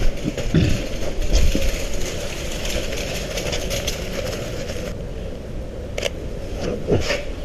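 Footsteps on snowy cobblestones in the first couple of seconds, then the shutter of a Sony A7 III mirrorless camera clicks twice, about a second apart, near the end.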